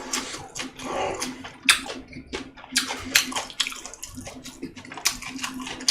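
A person chewing and smacking a mouthful of food close to the microphone: irregular wet clicks and squelches. A faint steady hum runs underneath.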